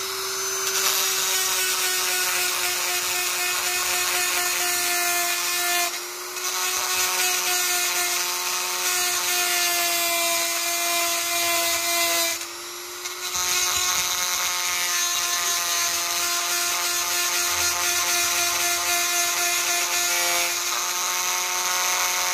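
Handheld rotary tool running at a steady high whine while its bit grinds down a bicycle derailleur extender (goat link) so it will sit closer against the frame's rear end. The whine drops briefly twice, about six seconds in and again about twelve seconds in.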